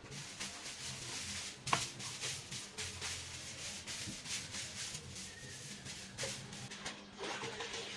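Soft grass broom sweeping a wet floor: a run of quick, repeated scratchy brushing strokes. A single sharp knock a little under two seconds in is the loudest sound.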